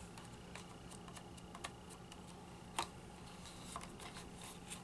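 Scattered light clicks and taps of makeup packaging being handled, the clearest a little before three seconds in.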